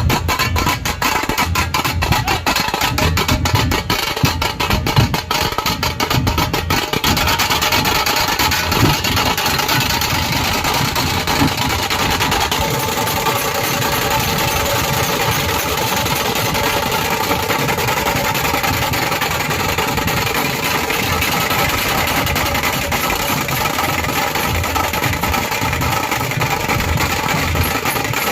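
Dhol-tasha ensemble drumming: fast, sharp tasha strokes over low dhol beats. About seven seconds in, the separate strokes blur into a dense, continuous roll, with the low beats carrying on beneath.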